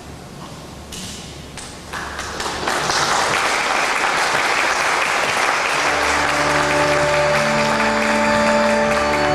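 Wedding guests applauding as the newly married couple is presented. A few claps come about a second in and swell into full applause. Organ music with held chords starts under the applause about six seconds in.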